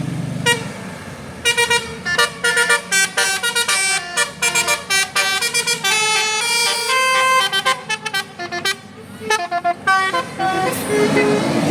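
Telolet Basuri musical bus horn playing a fast tune of short toots at changing pitches, with a few longer held notes in the middle. The tune stops about a second before the end, leaving vehicle noise.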